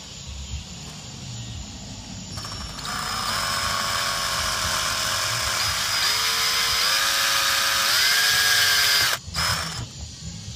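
Power drill driving a cap-head screw into the cooler to mount a latch. The motor whine starts about two and a half seconds in, steps up in pitch twice, and stops suddenly near the end.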